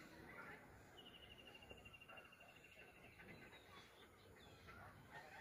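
Near silence: faint outdoor ambience. A thin, high trill starts about a second in and runs for about two seconds, falling slightly in pitch.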